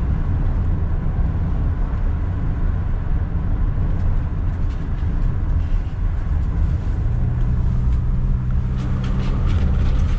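Car running on the road, heard from inside the cabin: a steady low rumble of engine and tyres. About seven seconds in, a steady low engine hum comes in over the rumble.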